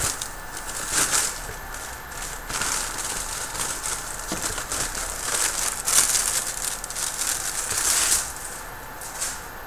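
Laptop packaging rustling and crinkling in irregular bursts as the laptop is unwrapped by hand, with a few small clicks and knocks.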